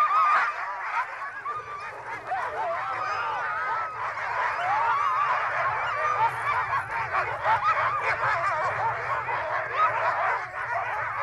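Many sled dogs yelping and whining at once, a dense chorus of overlapping cries that waver up and down in pitch.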